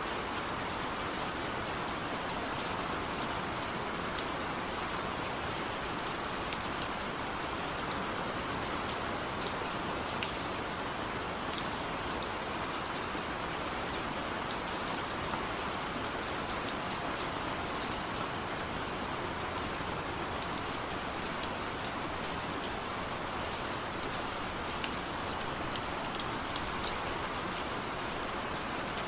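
Steady rain falling, an even hiss with many small drop ticks and no thunder.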